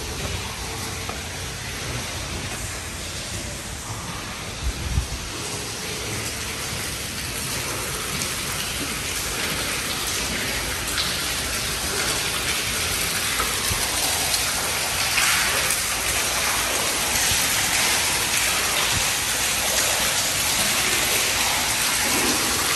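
A steady, even hiss that grows slowly louder, with a couple of short low knocks about five seconds in.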